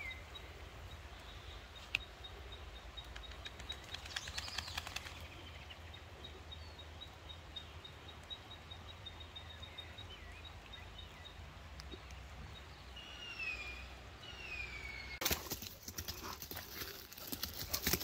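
Rustling and footfalls through wet long grass, strongest near the end as the borzoi runs close past. A few descending whistled calls come shortly before that, and a faint high ticking runs through the first half.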